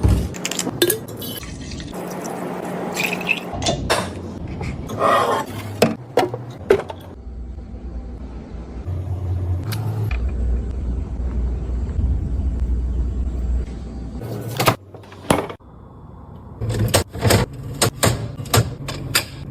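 Scattered knocks and clinks of things being handled, with a steady rush of water running or pouring through the middle.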